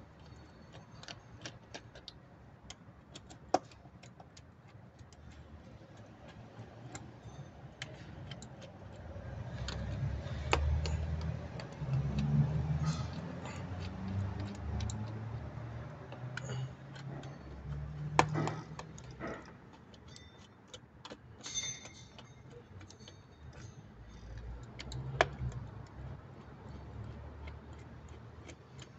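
A hand tool clicking and tapping against metal engine parts while a fastener is worked on, in scattered light ticks with a few sharper knocks. A louder low rumble comes and goes through the middle.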